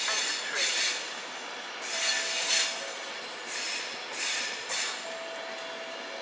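Virgin Trains Class 390 Pendolino electric train rolling slowly over the station pointwork, its wheels squealing on the curves. Screeching surges come about once a second, and a thin steady squeal holds for about a second, twice.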